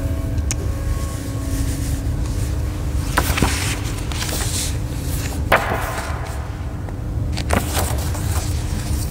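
Several short knocks and rustles of objects being handled at an altar, the loudest a little past halfway, over a steady low rumble and a faint hum.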